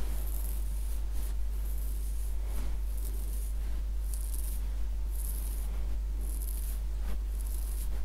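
Fingertips rubbing and scratching through curly hair close to the microphone, in soft rustling strokes about once a second, over a steady low hum.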